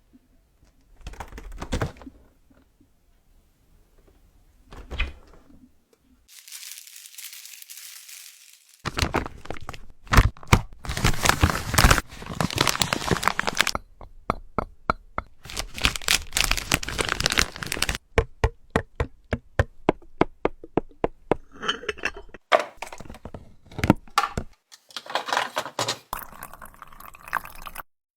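Close-miked ASMR handling sounds around a refrigerator: a soft hiss, crinkling and pouring noises, and a fast run of evenly spaced taps about two-thirds of the way in.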